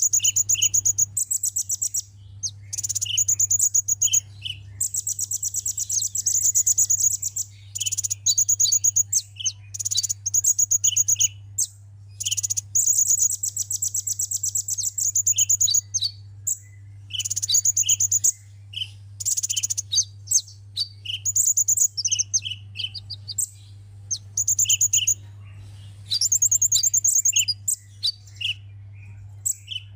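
Sunbird singing: fast, high trilled phrases of about a second each, repeated with short gaps and sharp chirps between them, over a steady low hum.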